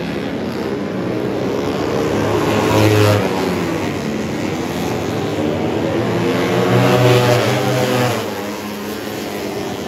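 Four-stroke 150cc underbone race motorcycles running at racing speed on a wet track, their engines rising and falling in pitch as they pass. The sound is loudest about three and seven seconds in, over a steady hiss.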